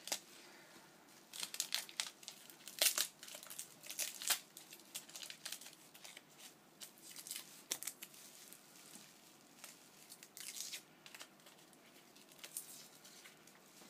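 Gift wrapping being torn and crumpled by hand as a present is unwrapped: irregular crackles and rips, busiest and loudest in the first few seconds, then thinning out.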